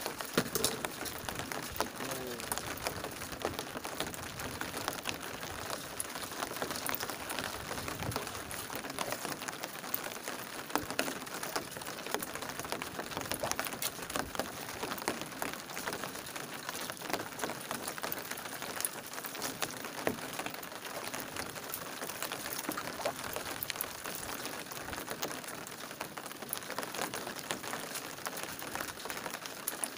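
Steady rain falling, a dense hiss dotted with many small drop ticks.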